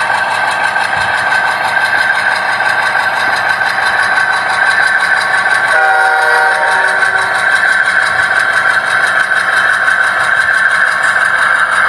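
Diesel locomotive sound running steadily, with a short horn blast about six seconds in.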